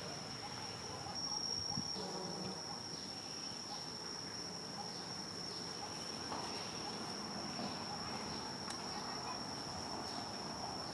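Insect droning in the surrounding forest: one steady, high-pitched tone that holds without a break.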